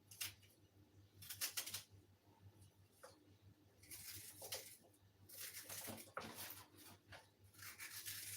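Faint, irregular rustling and scraping from hands working in a bowl: the diced onion going into the puff puff dough. It comes in four short bursts over a low steady hum.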